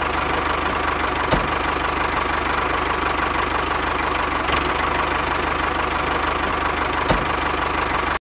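A motor running steadily, with a constant whine over a fast low rumble and three faint clicks spread through it; it cuts off suddenly at the end.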